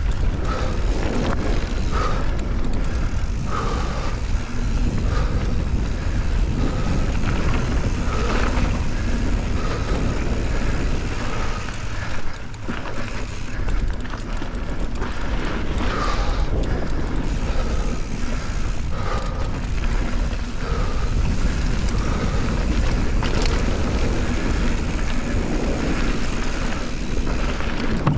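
Mountain bike rolling fast down a dirt and grass trail, with tyre noise and the bike rattling over bumps under steady wind rush on the action camera's microphone.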